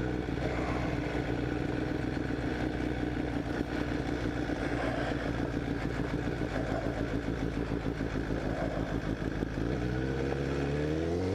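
Honda CBR1000RR's inline-four engine running at low, steady revs, then revving up near the end.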